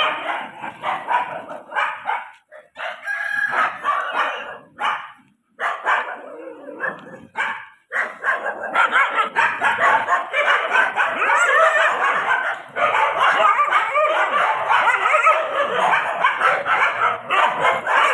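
Several kennel dogs barking and yelping together, in broken bursts at first and then without a break from about nine seconds in.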